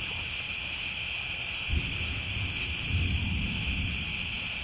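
A steady chorus of crickets trilling, with a low rumble coming in and fading out in the middle.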